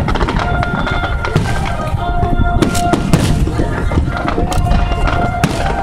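Aerial fireworks shells bursting and crackling in a rapid string of sharp bangs, with music playing over them. A heavy low rumble of wind runs on the microphone throughout.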